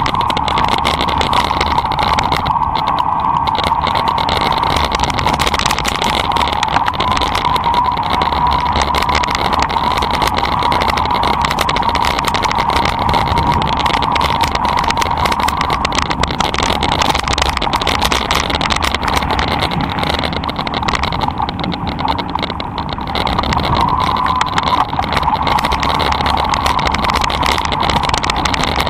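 Electric mountain bike riding along a gravel track: a steady whine from the pedal-assist motor, with tyre noise and rattling from the bike over the rough surface.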